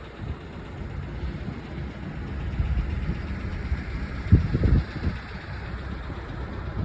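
A vehicle engine running with an uneven low rumble, with a louder stretch about four and a half seconds in.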